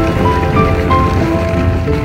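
Music: a melody of clear held notes changing a few times a second over a full low end.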